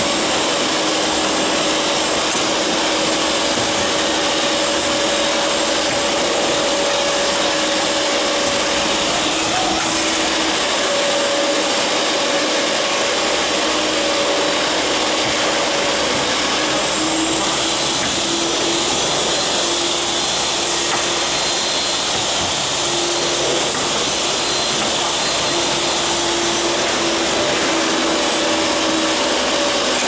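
Machinery running steadily: an even, loud whooshing noise with faint wavering hum tones and no separate strokes or knocks.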